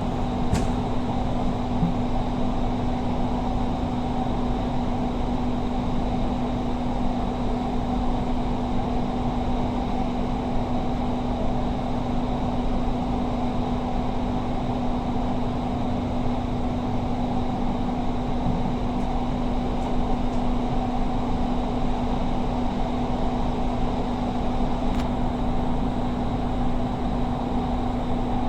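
Doha Metro train running between stations, heard from inside the passenger car: a steady rumble with a constant low hum and a faint high whine.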